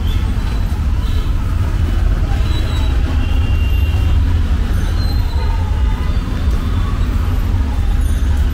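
Street traffic: a steady, loud low rumble of motor vehicles, with a few faint thin tones above it.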